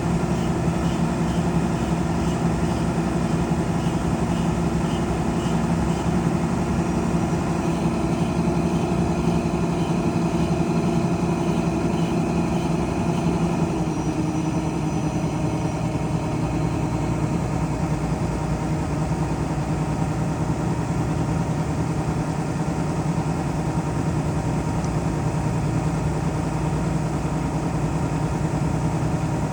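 Rice combine harvester's engine running steadily under load while its grain auger unloads into a truck; the engine note shifts slightly about halfway through. A faint regular ticking, about twice a second, runs through the first half.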